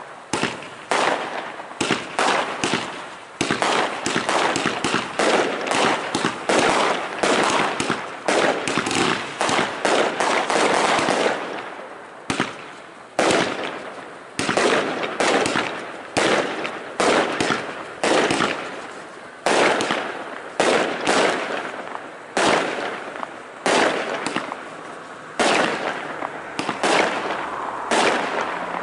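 Aerial fireworks bursting in a rapid, continuous string of sharp bangs, each trailing off in an echo. The bangs come thickest in the first ten seconds or so and a little more spaced later.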